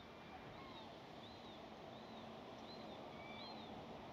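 Faint outdoor ambience with a bird repeating a short, high, arching chirp about every three-quarters of a second, and a couple of lower calls from other birds.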